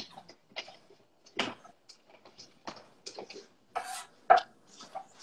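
Chef's knife slicing peeled garlic cloves on a wooden cutting board: irregular light taps of the blade against the board, two or three a second.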